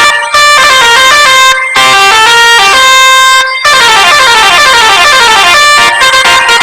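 Bus telolet horn playing a tune in quick, stepped horn notes, with short breaks between phrases and a fast falling run of notes past the middle.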